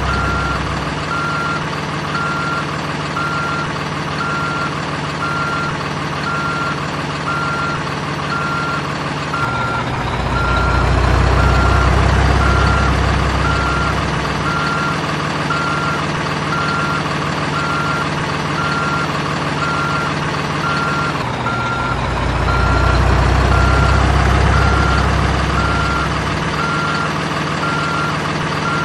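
Simulated diesel engine and electronic reversing beeper from an RC construction toy's sound module: a steady beep-beep-beep, about one and a half beeps a second, over an engine drone. The engine swells louder twice, about a third of the way in and again about three-quarters of the way in, as if revving under load.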